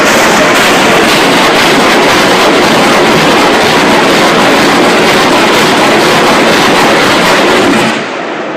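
Massed artillery and multiple rocket launchers firing a barrage, heard as one very loud continuous roar. It cuts off abruptly about eight seconds in.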